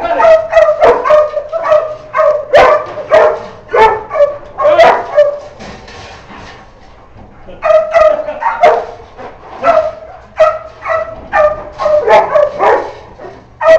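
Dogs barking excitedly at a raccoon, in rapid runs of loud barks with a short lull about halfway through.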